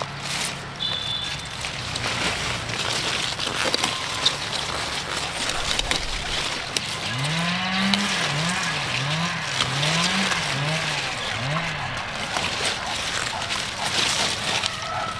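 Leafy greens rustling and stems snapping as they are picked by hand, a dense crackling with small clicks. About halfway through, a low pitched sound rises and falls about six times in a row for four seconds or so.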